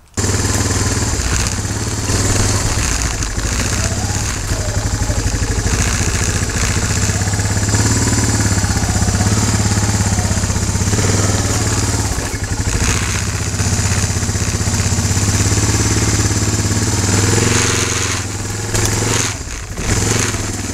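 ATV (quad bike) engine running while the quad is ridden, a steady hum that dips briefly a couple of times near the end.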